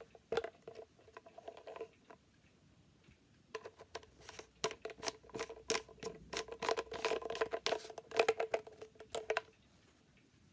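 Hollow white plastic drain-trap parts being handled and screwed together: a series of sharp clicks and knocks with a short hollow ring. A short cluster in the first two seconds, a pause, then a denser run from about three and a half seconds in until near the end.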